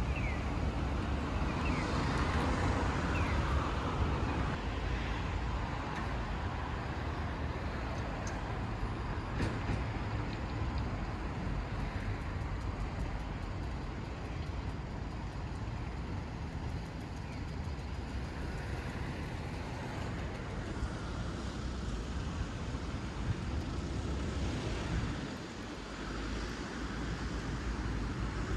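Steady hum of city road traffic, with no single vehicle standing out.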